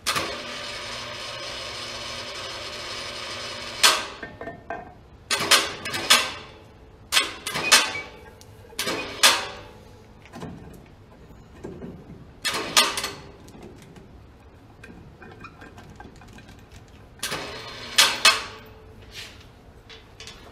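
A steady mechanical whirring hum for about the first four seconds, then a string of sharp metal clanks and knocks that ring briefly, in clusters up to about eighteen seconds in, as the cast-iron cylinder head of a Ford 9N engine is worked down over the block's studs onto a new head gasket.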